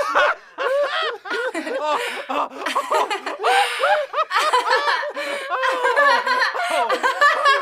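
Prolonged high-pitched laughter, a continuous string of short rising-and-falling laughing bursts.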